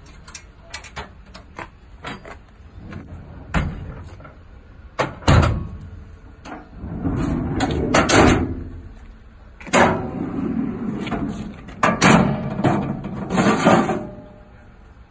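Aluminium checker-plate drawers and a slide-out anvil tray being pulled open on their runners, with sharp latch clicks and metal clunks, then three longer stretches of rattling, sliding metal near the middle and toward the end.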